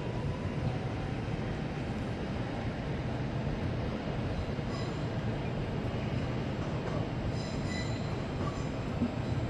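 Train rolling through a station with a steady low rumble, and faint high wheel squeals about halfway through and again near the end.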